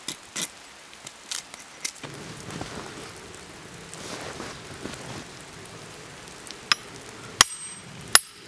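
Axe blows splitting a short birch log: a few light knocks in the first two seconds, then three hard, sharp strikes near the end, over a faint steady hiss.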